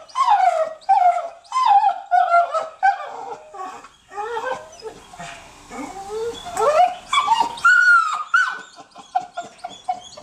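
American Pit Bull Terrier in a kennel whining and yelping in a rapid series of high cries, about two a second, each falling in pitch, thinning out near the end. It is worked up at the sight of another dog.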